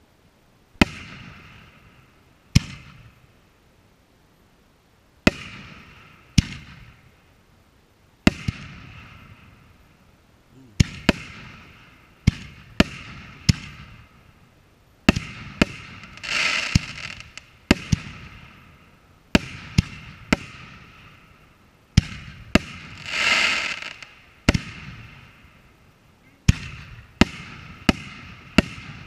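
Aerial firework shells bursting one after another, each sharp bang followed by a rolling echo that dies away. Twice, a longer noisy swell rises and fades over about a second between the bangs.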